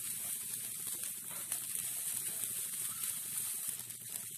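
Freshly grated coconut being roasted in a hot nonstick pan and stirred with a spatula: a soft, steady sizzle with light scraping.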